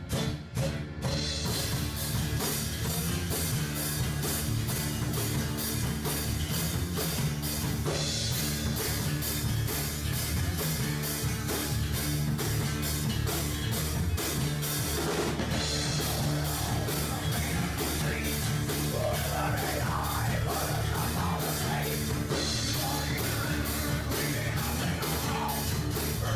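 Acoustic metal band playing a heavy rock song: strummed acoustic guitar, bass guitar and a drum kit keeping a steady, driving beat. A higher melodic line joins about two-thirds of the way in.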